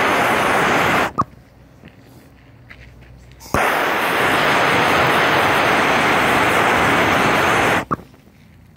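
Blowtorch flame hissing steadily against a burning, puffed 2S LiPo soft-case battery. The rush cuts off suddenly about a second in, leaving faint crackling from the burning pack. It starts again at about three and a half seconds and stops abruptly with a click near the end.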